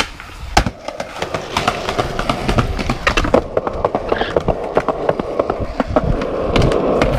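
Skateboard wheels rolling over concrete pavement, a steady rumble broken by many sharp clicks and clacks as the wheels cross cracks and joints.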